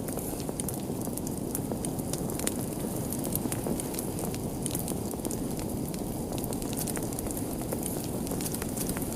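Wood fire burning with a steady low rush of flame and many small, irregular crackles and pops.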